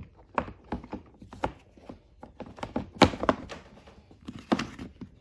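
Plastic clicks and knocks from the Predator 2000 inverter generator's plastic access cover being handled and fitted back onto the housing. The two loudest knocks come about three seconds in and about a second and a half later.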